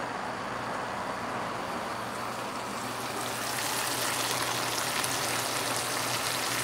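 Food sizzling and crackling in a hot pan, growing louder and more crackly about three seconds in, over a faint steady low hum.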